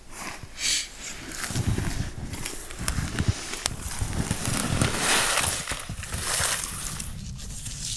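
Boots crunching and shuffling in snow with clothing rustling, in irregular close-up bursts.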